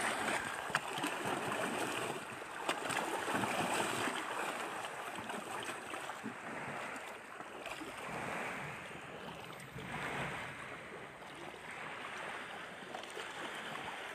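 Lake water splashing and lapping against a small boat, in uneven swells that rise and fade.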